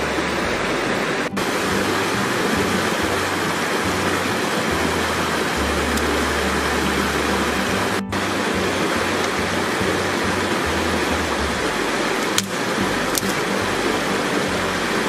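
Steady rushing of a shallow river running over rocks, with a single sharp click near the end.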